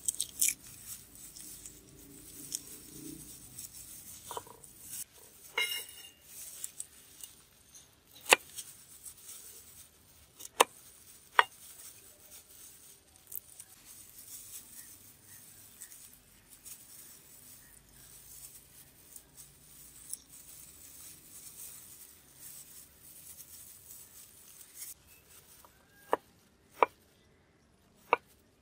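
Garlic being broken up and peeled by hand in plastic gloves: the papery skins and gloves crinkle and rustle, with a few sharp clicks. Near the end, a knife chops garlic cloves on a wooden cutting board, three sharp knocks.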